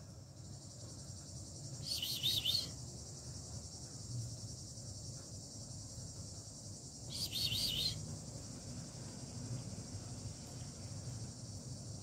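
Steady high-pitched insect chorus, with two short bursts of bird calls, one about two seconds in and one about seven seconds in, each under a second long.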